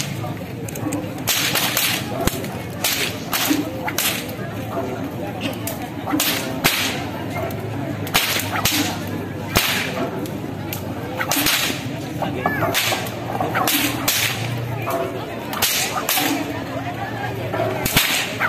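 Long whips cracked again and again by several men, sharp cracks coming irregularly about once a second over a murmuring crowd.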